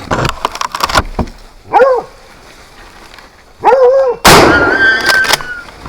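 Hunting dogs baying at a wild boar they are holding at bay: three drawn-out, arching barks about two seconds apart. About four seconds in comes a loud, sudden, noisy burst with a steady high tone that lasts about a second.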